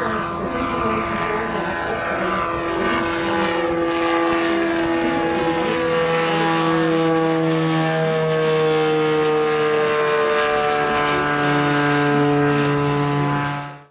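RUAG ADS-95 Ranger tactical drone's engine and pusher propeller droning steadily as it flies overhead, the pitch slowly falling as it passes and draws away.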